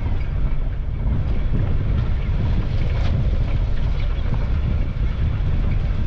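Steady rumble of a vehicle on the road, tyre and wind noise, heavy in the low end and even in level.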